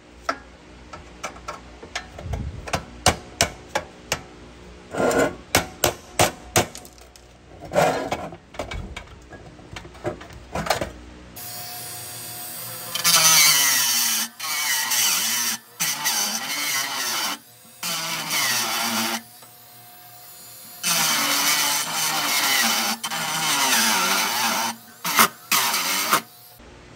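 A run of sharp metal taps and knocks, then a power tool running in bursts of a few seconds with short pauses, its pitch sweeping up and down as it works the metal.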